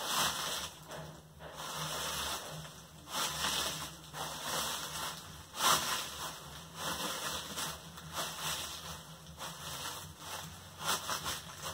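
Bags of dry leaves crunching and crackling under shoe soles, trodden again and again as Foley footsteps on dry leaves, with the plastic bags rustling along. The heaviest crunches come about three seconds in, around the middle and near the end.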